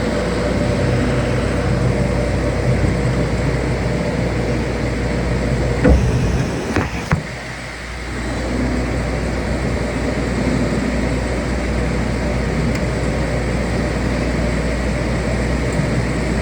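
Steady machine noise with a low hum. About six to seven seconds in it is broken by a couple of short knocks and a brief drop in level, then it picks up again.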